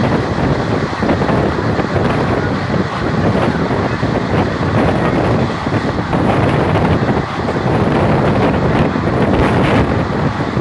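Wind buffeting the microphone at the window of a moving train, over the train's steady running noise.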